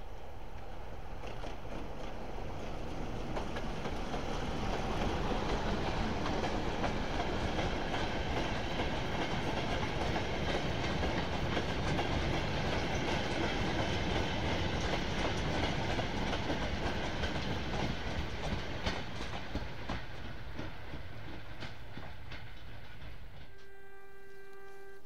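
Goods train of wagons and vans rolling past, its wheels rumbling and clacking over the rail joints, building up and then fading away. A steady pitched tone comes in near the end.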